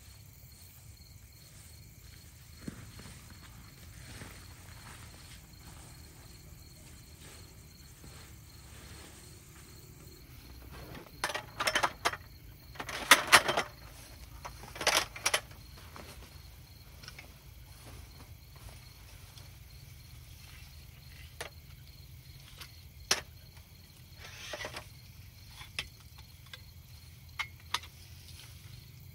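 Crickets chirping steadily, with a cluster of loud rustling bursts about a third of the way in as fabric camping gear is handled and pulled from a bag. Later come a few sharp clicks and knocks from a wooden folding table frame being unfolded.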